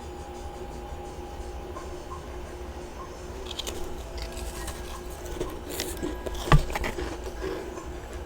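Chunks of freezer frost being bitten and crunched close to the microphone: scattered crisp crunches start about three and a half seconds in, with one sharper crack about six and a half seconds in, over a steady background hum.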